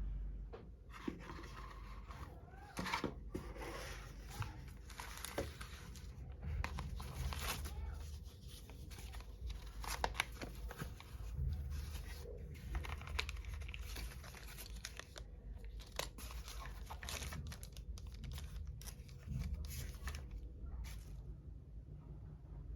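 Plastic or paper packaging crinkling and tearing, with irregular rustles and rips throughout.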